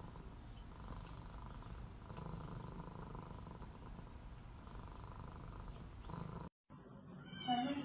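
A domestic cat purring steadily close up, cut off abruptly about six and a half seconds in. Near the end a short, louder call follows.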